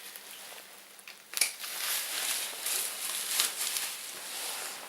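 Packaging rustling and crinkling as it is handled, with a few light clicks; it gets louder about a second and a half in.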